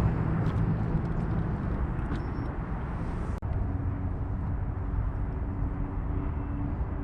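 Wind buffeting the microphone outdoors over a faint steady hum; an abrupt cut about three and a half seconds in, after which the hum sits a little higher in pitch.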